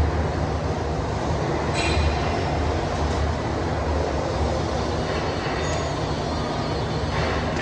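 Steady low rumble with an even hiss over it, the background din of a large open workshop; no welding arc is running.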